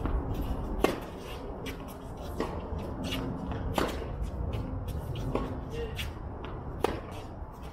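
Tennis rally: five sharp racket-on-ball strikes about a second and a half apart, with fainter ball bounces between them.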